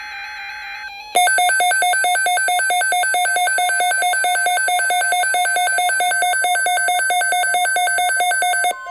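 NOAA Weather Radio alert: the broadcast's short digital header tones, then about a second in a weather radio receiver's alarm goes off, a loud, rapidly pulsing beeping in two pitches that cuts off near the end. It signals that a new severe weather watch or warning is being broadcast.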